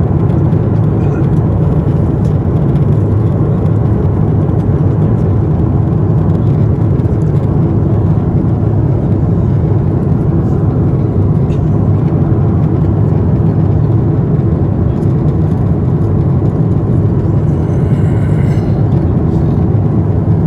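Steady cabin noise of a Boeing 747-8i at cruise, heard from a window seat: the deep, even rush of air over the fuselage and the drone of its GEnx-2B engines, with a few faint clicks of cabin fittings.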